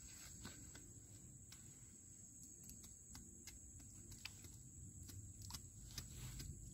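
Faint, irregular clicks and scrapes of a hand blade cutting weeds out of damp soil.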